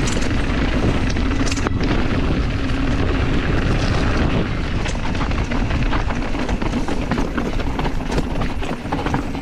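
Rockrider AM 100 mountain bike riding down a rocky trail: wind buffeting the camera microphone, tyres crunching over loose stones, and the bike rattling with many short knocks and clicks.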